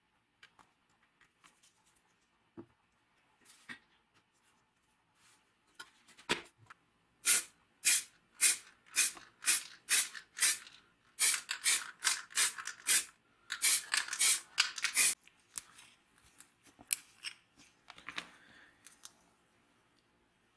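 Hand tool working on an antique wooden level in quick, rhythmic, hissy strokes at about two a second, with a short pause partway through. Lighter handling knocks and rubs come before and after.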